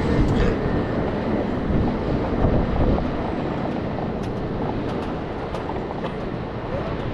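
Roller coaster train climbing its lift hill, a steady mechanical rumble from the lift and wheels. From about four seconds in, sharp clicks come roughly twice a second.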